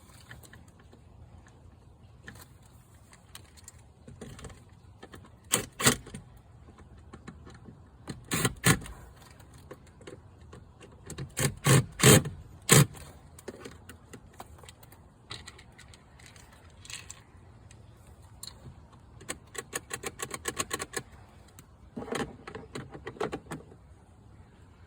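Scattered clicks, knocks and rattles of a screwdriver and small metal and plastic parts being handled while the screws of a glove box latch assembly are started by hand; the loudest knocks come in the first half, and a quick run of small clicks follows later.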